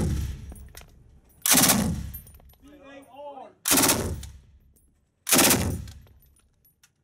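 AA52 French general-purpose machine gun firing short bursts of automatic fire: the tail of one burst, then three bursts of a fraction of a second each, about two seconds apart. Each burst echoes in an indoor range. A voice speaks briefly between the first two full bursts.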